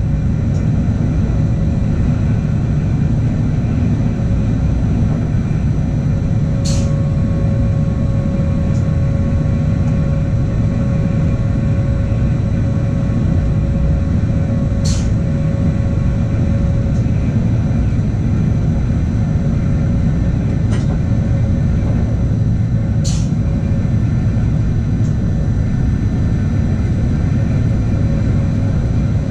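Regional passenger train running steadily, heard from the driver's cab as a constant low rumble, with a short sharp tick about every eight seconds.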